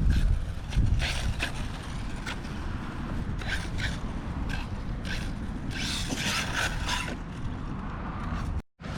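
Wind rumbling on the microphone, with several short scraping and rattling noises. The longest comes about six seconds in. The sound cuts out for a moment near the end.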